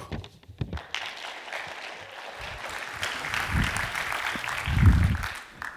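Audience applauding, with a few low thuds about halfway through and near the end. The applause stops sharply just before the end.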